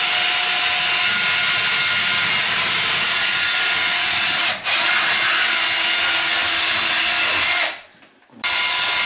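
Cordless drill running steadily at a tiled wall, with a steady motor whine in it. It cuts out for an instant about halfway through, stops for about half a second near the end, then starts again.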